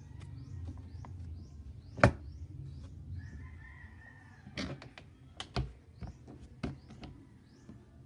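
Sharp knocks and clacks on the plastic body of a Sharp twin-tub washing machine as it is handled: one loud knock about two seconds in, then four smaller ones. A bird chirps in the background, about two short falling chirps a second.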